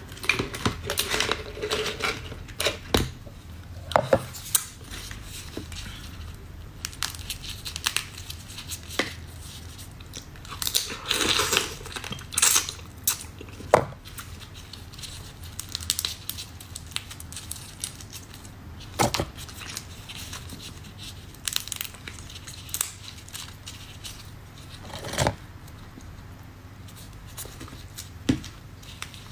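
Cooked crab in thick sauce being torn and cracked apart by hands in plastic gloves: irregular sharp cracks of shell and tearing, with crinkling of the gloves, and a longer crackling stretch a little before the middle. At the start a spoon scrapes the crab out of a jar.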